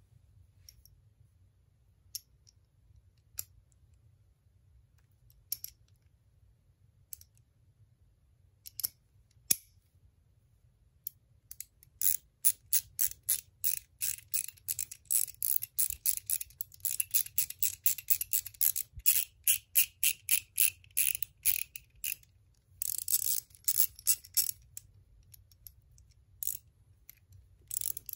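A few separate metal clicks as a Nepros quick spinner is fitted onto a 1/4-inch ratchet head. Then about ten seconds of rapid ratchet pawl clicking as the ratchet is spun by the spinner; its light gear freewheels easily. For a moment the clicks run together into a continuous rattle.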